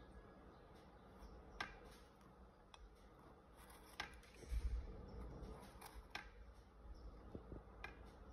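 Metal palette knife scraping and spreading thick acrylic paint across canvas, faint, with several light ticks as the blade touches down and a soft low bump about halfway through.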